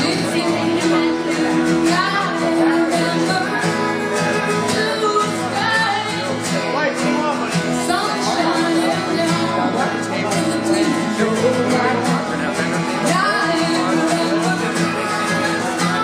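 A woman singing to her own strummed acoustic guitar, performed live.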